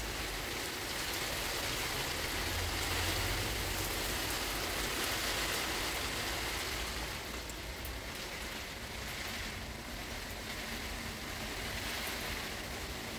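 Steady heavy rain falling on wet paving, hedges and garden leaves, slightly louder in the first half.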